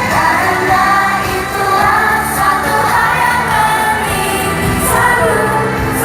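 Female idol group singing a pop song in unison over a backing track, played loud through the PA and recorded from the audience.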